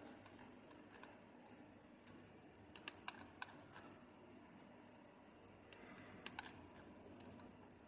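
A few faint computer keystrokes and mouse clicks over a low steady hiss: a small cluster of clicks about three seconds in and another pair a little after six seconds in.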